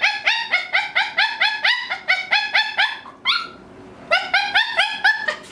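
Elderly Maltese dog screaming: a fast, unbroken string of short high-pitched yelps, about five a second. About three seconds in it breaks off with one rising yelp, falls quiet for under a second, then takes up the same string again. This is the non-stop screaming the owner describes, which she puts down to an itchy or painful face.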